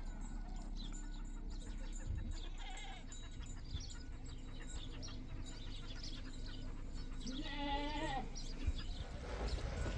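A goat bleats once, a long wavering call about three-quarters of the way through, with a few faint shorter calls earlier, over a steady low background rumble.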